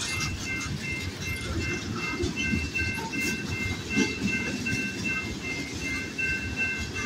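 Freight cars of a CPKC manifest train rolling past with a steady rumble and clatter of steel wheels on the rails. Over it, the grade-crossing signal's warning bell rings steadily, about three dings a second.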